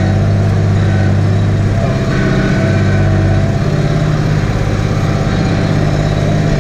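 Tractor diesel engine running steadily under ploughing load, heard from inside the cab with a constant low drone.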